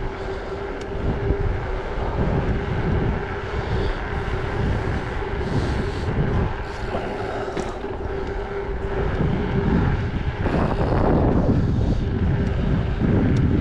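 Wind rushing over the microphone of a mountain bike riding along a paved road, a low rumble with a steady hum underneath.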